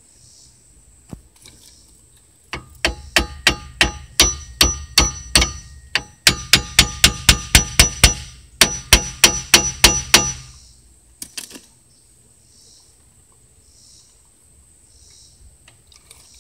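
Hammer striking metal at a car's bared front brake (rotor and caliper): three runs of quick ringing blows, about three or four a second, then a couple more a second later.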